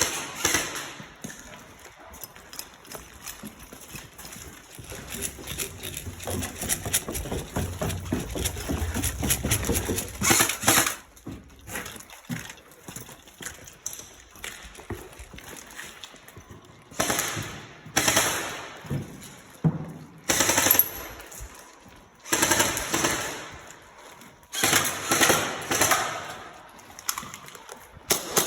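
Airsoft guns firing in repeated bursts of rapid full-auto shots, the longest run lasting several seconds about a third of the way in, then shorter bursts near the end.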